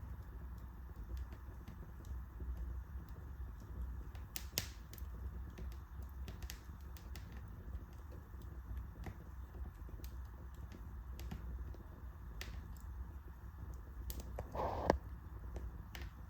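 Wood fire crackling in a fireplace: scattered sharp pops and clicks over a low steady rumble, with a brief louder hiss ending in a pop near the end.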